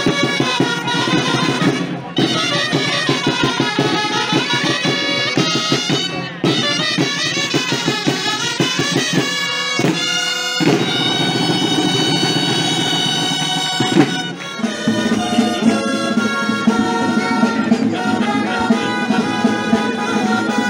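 A band of gralles, the loud Catalan double-reed shawms, playing a dance tune with drum beats; about ten seconds in the music breaks briefly and goes on with longer held notes.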